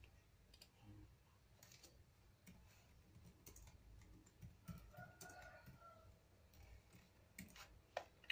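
Faint typing on a laptop keyboard mixed with mouse clicks: scattered, irregular clicks, with one sharper click near the end.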